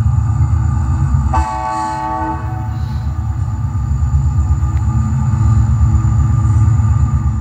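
HO-scale model diesel locomotive in Rio Grande livery running past with its onboard sound: a steady, pulsing low diesel engine rumble. One horn blast sounds about a second in and lasts about a second.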